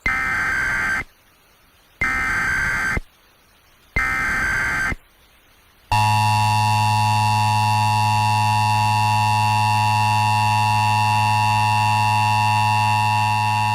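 Emergency Alert System test tones: three short warbling bursts of SAME header data, each about a second long with a second's pause between them. About six seconds in comes the steady, loud two-tone EAS attention signal.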